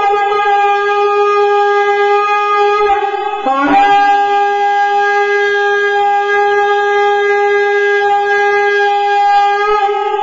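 A berrante (cattle horn) blown in long held notes, with a brief break in pitch a little over three seconds in before the next long note.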